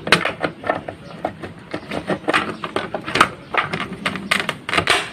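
Typewriter typing: irregular, quick key strikes clacking several times a second, some louder than others, with the new ribbon fitted.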